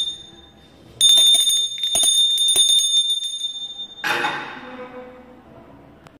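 A small high-pitched bell rung to call people in: one short ding, then rung rapidly for about three seconds. A louder burst of noise follows about four seconds in and fades away.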